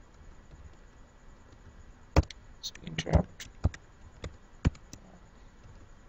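Computer keyboard keystrokes: about a dozen sharp, separate clicks starting about two seconds in, a quick cluster around the middle, then single taps spaced out.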